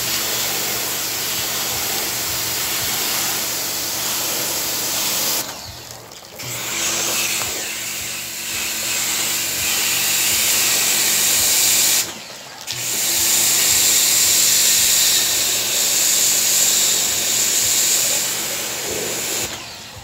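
Electric pressure washer running and spraying water into an air conditioner's outdoor condenser fins to clean them: a steady hiss of spray over the hum of the pump motor. Both cut out briefly about six and twelve seconds in, and again near the end.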